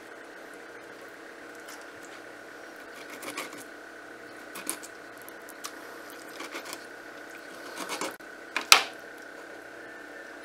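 A kitchen knife cutting into a small whole fish on a plastic cutting board: a few short scrapes and knocks, the loudest a sharp knock of the blade on the board near the end. A steady background hum with a high tone runs underneath.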